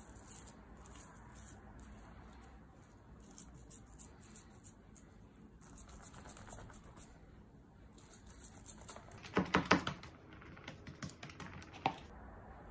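Fingers pressing and patting soft semolina dough into a metal baking tray: faint scratchy tapping, with a quick run of sharper taps about nine seconds in and one more near the end.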